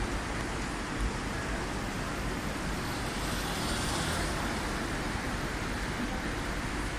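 Tubular fabric spreading machine running: a steady mechanical whir and hiss, a little louder about halfway through.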